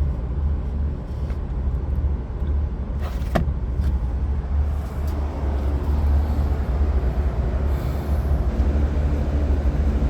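Steady low rumble of background noise, with one sharp click a little over three seconds in.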